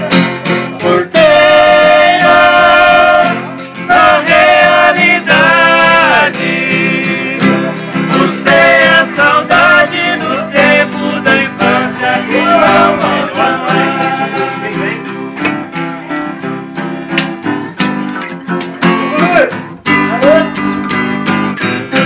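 Two men singing a Brazilian country (caipira) song together over two acoustic guitars. After about fourteen seconds the singing mostly stops and the guitars carry on with a picked passage, with the voices coming back briefly near the end.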